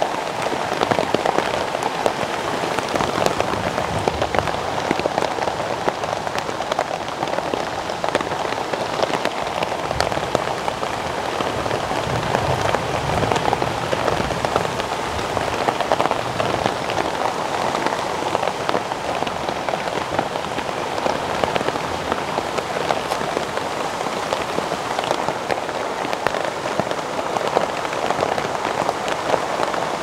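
Steady rain falling, a continuous hiss thick with the fine ticks of individual drops, unchanging throughout.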